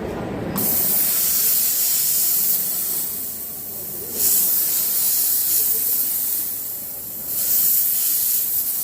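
Jewelry steam cleaner blasting pressurized steam at a piece, a loud hiss in three bursts, starting about half a second in.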